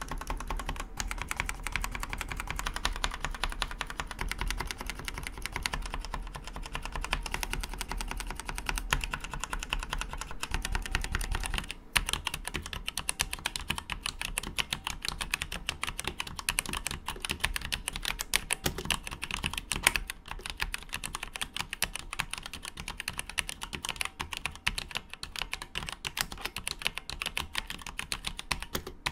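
Fast, continuous typing on a Maxtill TRON G610K RGB V2 full-size mechanical keyboard with Outemu dustproof black switches: a dense stream of key clacks, with a brief break about twelve seconds in.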